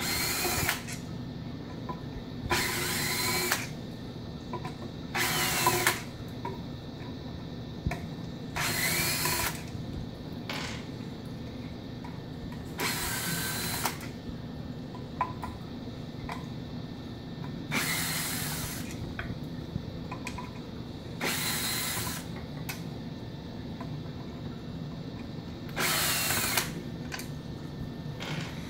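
Ryobi cordless drill/driver backing out the screws that hold a hot tub pump's plastic wet-end housing to the motor. It makes about eight short whirring runs of a second or less, a few seconds apart, with small clicks between them.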